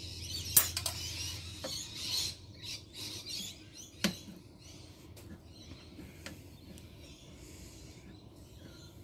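Hands working a panel frame loose on a solar inverter's sheet-metal case: scraping and rattling of metal for the first few seconds, with a sharp click about half a second in and another about four seconds in, then quieter light handling.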